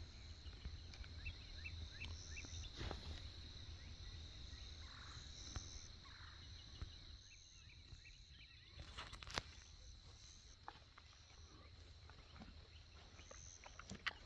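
Faint early-morning woodland ambience: scattered high bird chirps over a steady thin high-pitched hum and a low rumble, with a few light ticks. No turkey gobbling is heard.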